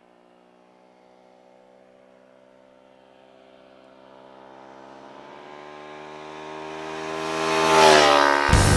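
Motorcycle engine at steady revs, approaching and getting steadily louder, its pitch dropping as it passes by near the end. Loud music cuts in just afterwards.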